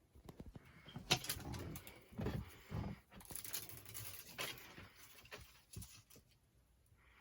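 Rustling and crinkling with scattered clicks and light knocks from handling an adhesive LED light strip as it is peeled and pressed onto a wall.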